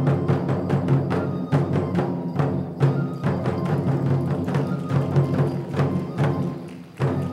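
Kenbai folk-dance accompaniment: chest-slung taiko drums beaten with sticks in a steady rhythm of about two to three strikes a second, over steady sustained tones from the other accompaniment.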